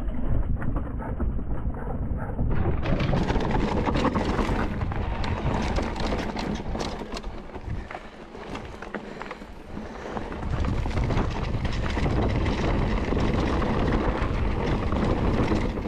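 Mountain bike clattering over a rough, rocky trail: tyres crunching and the bike rattling in a stream of sharp knocks, with a low rumble of wind on the microphone. It eases a little about eight seconds in, then picks up again.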